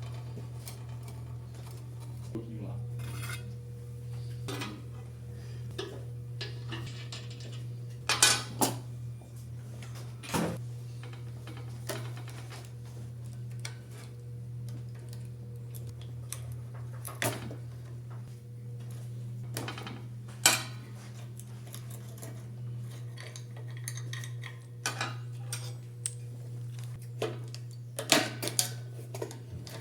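Metal parts and tools clinking and clanking at irregular intervals, with a few sharper knocks, over a steady low hum.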